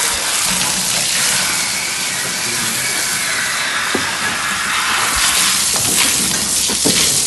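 Water rushing and spraying, a steady loud hiss, with a few light knocks in the second half.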